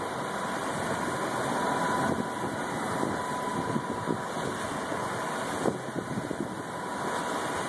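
Beta 38 hp marine diesel running steadily with the boat under way at a fast cruise, mixed with the steady rush of water past the hull.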